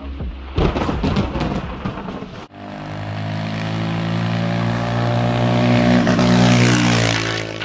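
Motorcycle engine driving past: from about two and a half seconds in it runs at a steady pitch, grows louder as it approaches, then drops slightly in pitch and fades near the end as it goes by.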